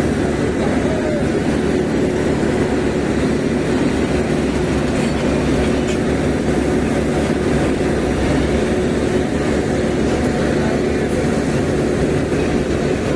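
Heavy vehicle engine running steadily at a constant speed, with a faint steady hum and no change in pitch.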